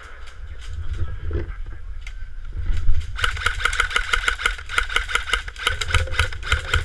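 Airsoft electric rifle firing a long full-auto burst, a rapid string of shots starting about three seconds in, after rumbling handling noise.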